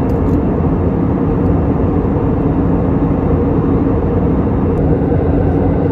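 Steady in-flight cabin noise of an Airbus A320neo airliner with CFM LEAP-1A engines, heard by the wing: a constant rush of airflow and engine drone with a faint steady hum underneath.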